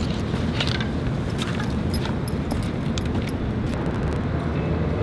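Steady low vehicle rumble with scattered light clicks.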